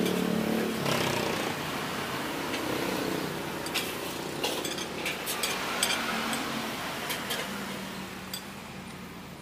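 Scattered light clinks of metal cutlery against dishes.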